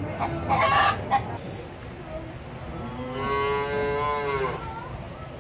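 A rooster calls briefly about half a second in, then a young calf moos once for about a second and a half, the call dropping in pitch as it ends.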